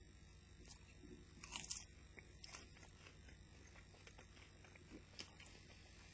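Faint crunching of a person chewing a chocolate-topped rice cake, with the loudest crunches about one and a half seconds in and a few smaller crackles after.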